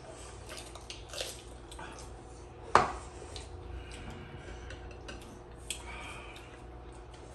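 Spoons clinking and scraping against plates and bowls during a meal: scattered light clicks, with one sharp clink nearly three seconds in and another just before six seconds.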